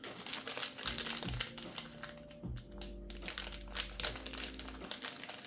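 Rummaging through a plastic bag of LEGO pieces: crinkling plastic and many small clicks of bricks rattling against each other, over steady background music.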